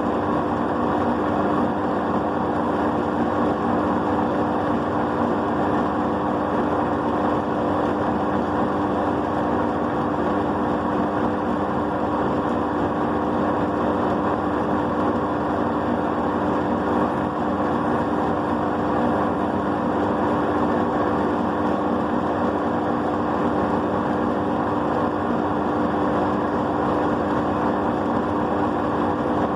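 Ultra Gold wet grinder running steadily: a constant motor hum with an even whirring noise and no change in speed.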